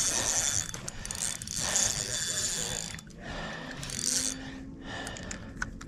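Fishing reel clicking in several short spells of rapid ratcheting, with pauses between.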